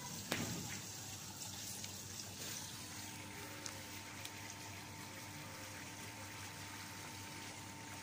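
Small fountain's bell-shaped water jet splashing steadily into its basin, faint and even, with a few light knocks in the first second.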